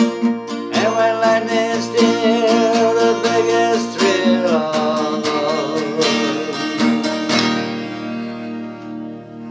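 Acoustic guitar strummed in a steady country rhythm under a man's singing voice. Near the end a last chord is strummed and left to ring, fading out.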